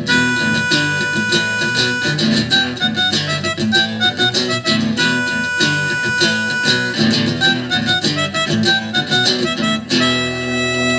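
Live band playing the instrumental ending of a song: harmonica lines over strummed guitar and a steady beat, closing on a long held chord near the end.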